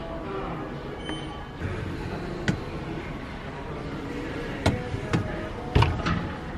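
Wire dish racks of an LG dishwasher being slid and handled, giving about five sharp metallic clicks and knocks in the second half, the loudest near the end, over steady background noise.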